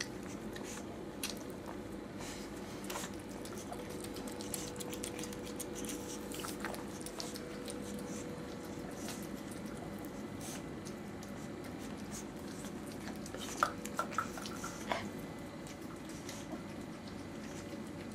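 Pug licking and chewing peanut butter out of a rubber Kong toy: soft wet smacking and scattered clicks, with a few sharper clicks about 14 seconds in, over a steady low hum.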